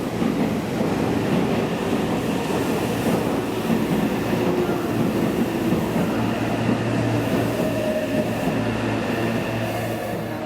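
Meitetsu electric train moving through the platform, with steady wheel and running noise; a low steady motor hum and a few held tones join about five to six seconds in.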